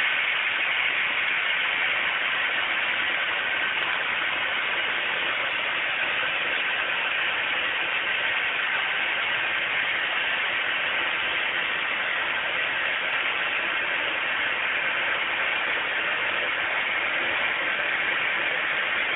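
Pressurized canister heating in a barbecue fire, venting gas with a loud, steady hiss that does not change in level.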